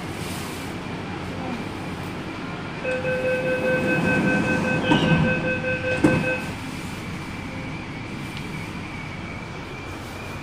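MTR C-Train door-closing warning beeping for about three and a half seconds, ending in a thump as the doors shut, then the steady running hum of the train with a thin high whine.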